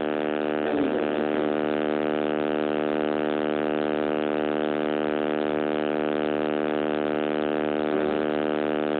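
Loud, steady electrical buzz from a damaged phone microphone: a constant droning hum that does not change. Faint voices show through it about a second in and near the end.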